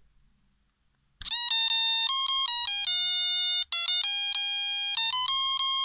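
Electronic Christmas tune from the built-in speaker of a musical Christmas light set's control box, starting about a second in: a beeping melody of one note at a time, with a brief break partway through.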